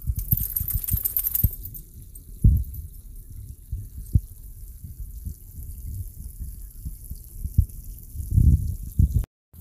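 Low rumbling and scattered dull thumps on a handheld phone's microphone, with a brief hiss in the first second and a half. The sound cuts out suddenly near the end.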